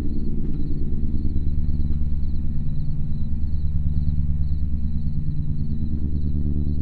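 A low, steady droning rumble with a fast, even throb: a dark sustained drone from a horror trailer's score.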